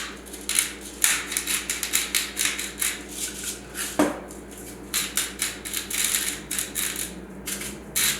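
Salt and pepper being shaken into a bowl of flour: a quick run of dry rattling taps, several a second, with one sharper knock about four seconds in.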